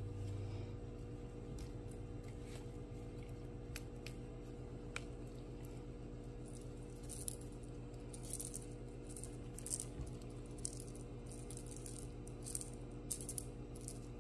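Scattered light clicks, taps and small rattles from kittens at play, crowding together in the second half, over a steady low hum.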